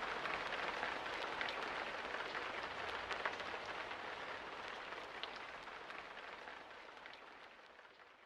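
Rain falling steadily, with scattered individual drops ticking, fading gradually away towards the end.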